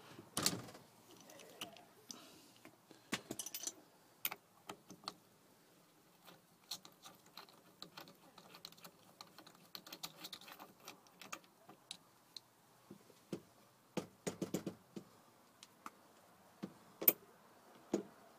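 Scattered, irregular metallic clicks and clinks of hand tools: a 13/16-inch socket on an extension being fitted to and worked on the steering wheel nut, with a few louder knocks near the end.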